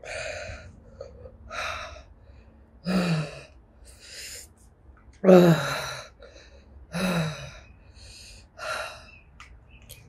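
A woman huffing and gasping through her open mouth from the burn of Carolina Reaper peppers, about seven hard breaths in a row. Three of them are voiced, falling-pitched gasps, the loudest about halfway.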